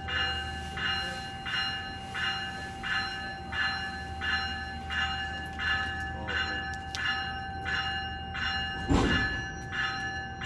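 A GO Transit train's warning bell ringing steadily, about one and a half strokes a second, over a low steady rumble from the train. There is a single loud thump about nine seconds in.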